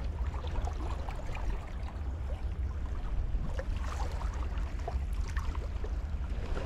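Wind buffeting the microphone as a steady low rumble, with water lapping and splashing faintly against shoreline rocks.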